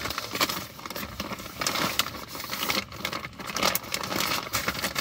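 Plastic packaging crinkling and rustling in irregular bursts as a steering wheel cover is handled and unwrapped from its bag.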